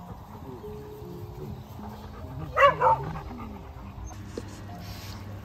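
A dog barks twice in quick succession about halfway through, amid a pack of dogs milling around.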